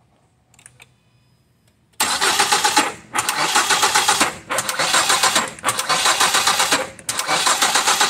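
A Ford Fusion's four-cylinder engine being cranked by its starter without firing, starting about two seconds in. The cranking keeps stopping itself, in five runs of about a second each with short breaks between them. The mechanics attribute this halting crank to a possible timing problem, with the spark firing against a rising piston.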